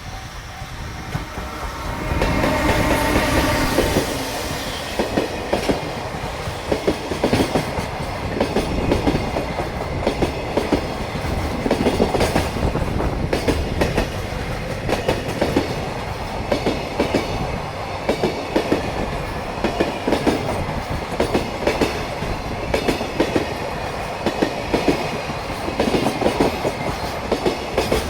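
JR Freight EF210 electric locomotive passing at close range about two seconds in, followed by a long train of Koki container wagons. Their wheels knock loudly over rail joints in a repeated clickety-clack.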